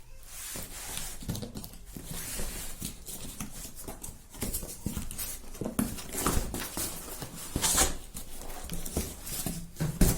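Parcel packaging being handled and opened: irregular rustling, scraping and knocking of cardboard and plastic, with a few louder scrapes.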